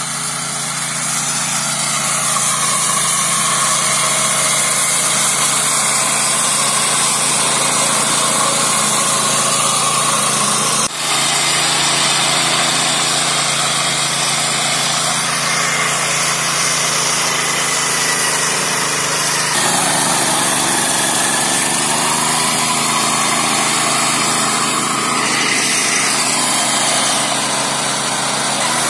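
Small air-cooled petrol engine of a Neva walk-behind tractor running steadily at working speed, driving a Zarya rotary mower through tall grass and weeds.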